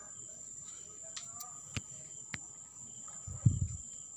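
Steady high-pitched insect trill, as of crickets, with two faint sharp clicks and a short low thump about three and a half seconds in.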